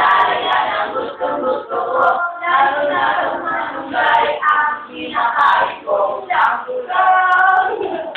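Several voices singing a jingle together, loud and continuous, with short breaks between phrases.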